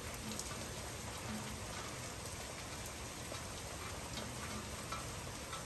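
Heavy rain pouring down in a storm: a steady hiss of rainfall with scattered ticks of individual drops landing.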